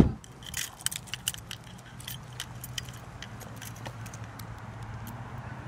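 A car door thuds shut, followed by about two seconds of light jingling clinks of car keys. A low steady hum comes up after that.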